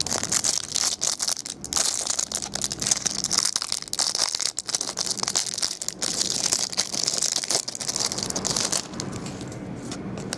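Clear plastic packaging crinkling and crackling as it is handled, a dense run of fine rustles and small clicks that eases off about nine seconds in.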